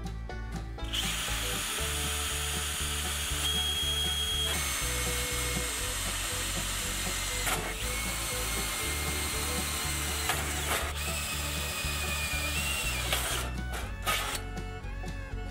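Cordless power drill running under load in several long runs, its motor whine shifting in pitch as the speed changes, with short pauses between runs.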